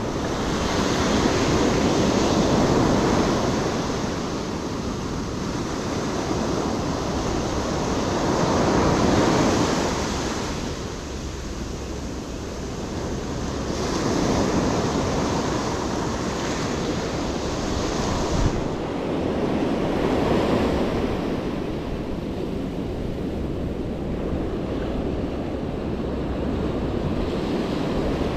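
Ocean surf breaking and washing up a sandy beach, swelling and easing every five or six seconds.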